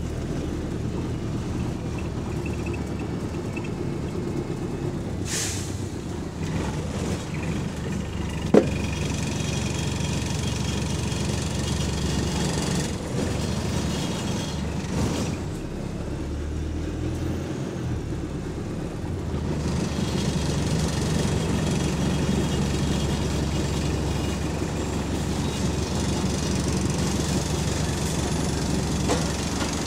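Bus engine running as the bus drives, heard from inside the cabin with loose interior parts rattling throughout. A short air hiss comes about five seconds in and a single sharp knock about eight and a half seconds in.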